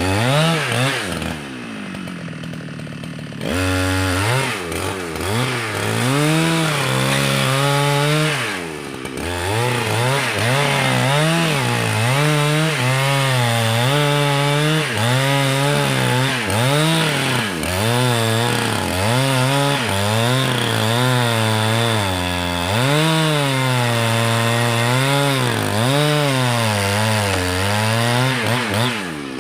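Two-stroke chainsaw cutting red meranti timber, its engine pitch swinging up and down every second or two under load. It drops back to a lower, quieter idle for about two seconds near the start, and again briefly about nine seconds in.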